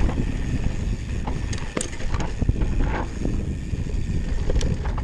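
Electric mountain bike riding a dirt singletrack: wind buffeting the camera microphone and a steady tyre-and-trail rumble, with a few sharp rattles from the bike about two seconds in and again near the end.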